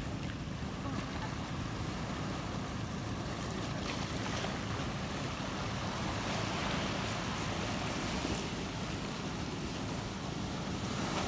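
Sea waves washing and breaking on a rocky shore, with wind rumbling on the microphone. The surf swells a little louder around six to eight seconds in as a wave breaks against the rocks.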